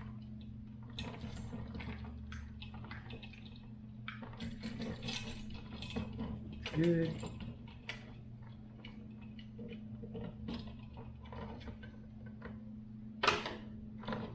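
Screwdriver tightening a wire terminal screw on a smart light switch: small irregular metal clicks and scrapes, with a sharp click near the end. A steady low hum runs underneath.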